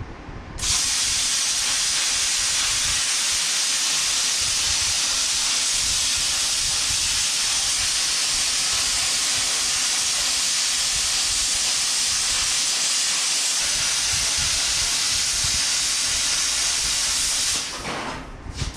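Plasma cutter cutting sheet steel: a loud, steady hiss of the arc and air jet that starts abruptly and cuts off shortly before the end.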